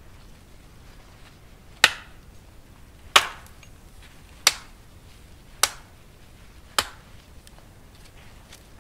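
An axe chopping into the trunk of a standing conifer to fell it: five sharp strikes, each a little over a second apart.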